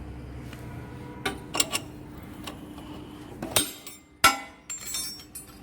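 A series of sharp metallic knocks and clinks from tools and parts being handled while working on a motorcycle's timing gears; the two loudest, about three and a half and four and a quarter seconds in, ring briefly.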